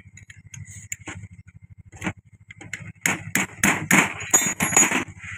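Steel spanner and tools clinking and tapping against the metal body of a Massey Ferguson 1035 tractor hydraulic pump while its safety valve is tightened: a few scattered clicks, then a quick run of loud metallic clinks with a ringing note about three seconds in.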